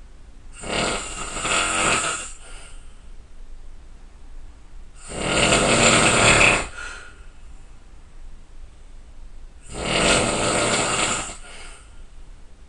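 A person snoring loudly: three long snores, about four and a half seconds apart, with quiet breathing between them.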